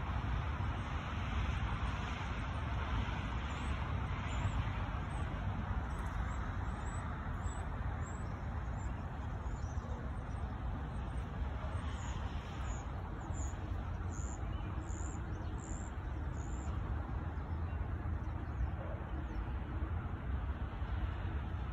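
Steady rumble of distant road traffic. Through the middle of it comes a series of short, high chirps, one or two a second, clearest near the two-thirds mark.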